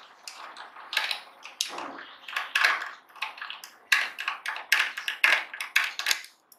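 Small precision screwdriver working the platter-clamp screws of an opened hard drive: irregular clicks and short metallic scrapes as the bit seats in the screw heads and the screws turn.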